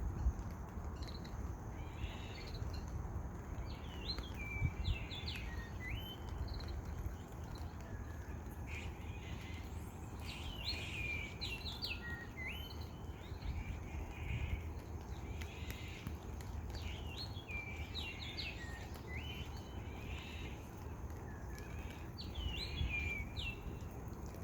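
A songbird singing short phrases of sliding and steady whistled notes, repeated every few seconds, over steady low background noise.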